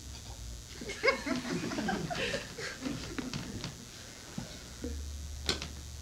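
Wordless human vocal sounds, short grunts, murmurs and chuckle-like noises, with small clicks, then a single sharp click about five and a half seconds in.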